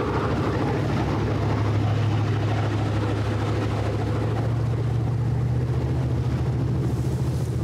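A motorboat's engine droning steadily under way, with water rushing past the hull.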